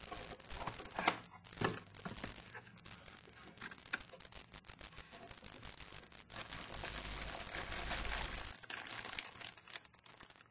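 Cardboard packaging being handled, with a couple of sharp knocks and rustles about a second in. From about six seconds in, a plastic bag crinkles for a few seconds as a cable sealed in it is pulled from the box.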